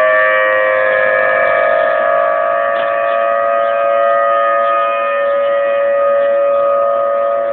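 Outdoor tornado warning siren sounding a steady, held tone with a few pitches together and only slight swells in loudness, signalling a tornado warning in effect.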